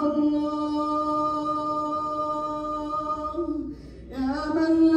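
A man chanting an Arabic supplication (dua) in a melodic, sung style, holding one long drawn-out note on the final 'yā' for about three and a half seconds. After a brief breath he starts a new rising phrase near the end.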